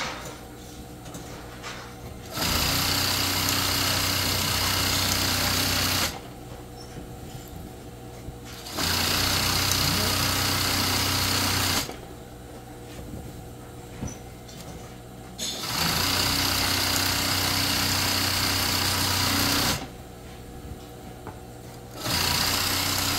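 Industrial sewing machine stitching in four runs of about four seconds each, with short pauses between them as the material is repositioned.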